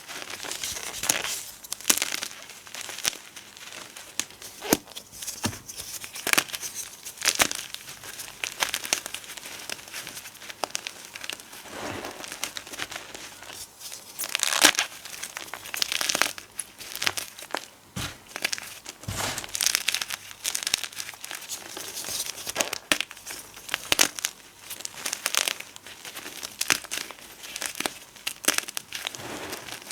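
Gym chalk and potato flour being crushed and crumbled, irregular soft crunches and crumbling bursts following one another every second or so.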